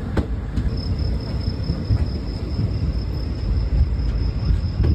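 Express train running, heard from inside a passenger coach: a steady low rumble with a few sharp clicks, and a thin, steady high whine that sets in about a second in.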